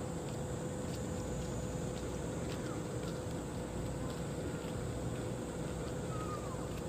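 A boat's diesel engine running steadily: a continuous low rumble with a steady hum, with a few faint short chirps over it.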